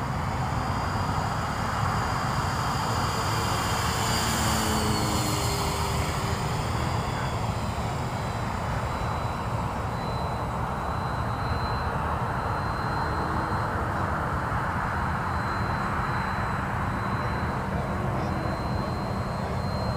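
Radio-controlled model Extra aerobatic airplane in flight, its engine droning steadily with a thin high whine whose pitch swings up and down for a few seconds about four seconds in.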